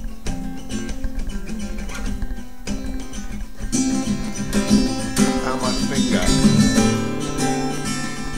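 Acoustic guitar played solo: quieter picked chords at first, then louder, fuller strumming from about four seconds in.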